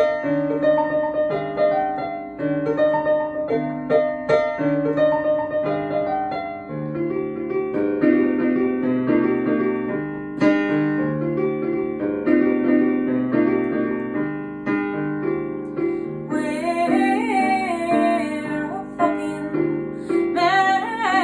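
Piano played on a keyboard: a slow intro of steady, repeated chords. About sixteen seconds in, a woman starts singing over it, her voice sliding up and down on held notes.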